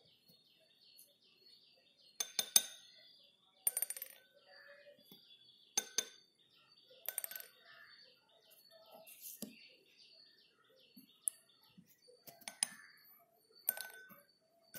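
Sharp ringing clinks of small hard objects, about eight of them at irregular intervals, over faint continuous bird chirping.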